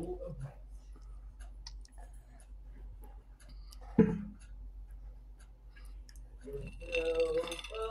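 A girl's mouth sounds as the spicy Buffalo chicken nuggets burn her mouth: faint lip smacks and small clicks, and a sharp puff of breath about four seconds in. Near the end a short pitched sound comes in and grows louder.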